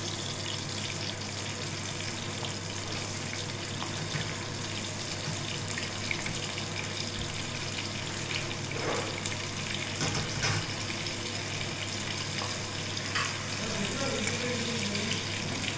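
Cut pieces of mirchi bajji (gram-flour-battered green chillies) sizzling steadily in hot oil as they are fried a second time, with a few light clicks.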